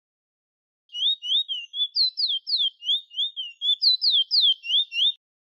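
Chestnut-bellied seed finch (the Trinidad 'bullfinch') singing: a fast, unbroken run of clear, slurred whistles, with a few higher, falling notes in the middle and again near the end. The song starts about a second in and stops just before the end.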